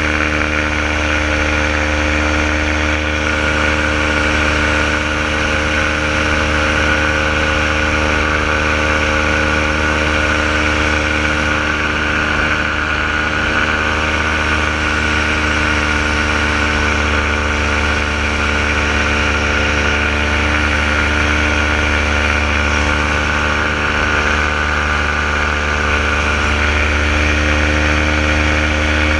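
Renegade paramotor engine and propeller running at a steady throttle in flight, one unbroken drone with no change in pitch.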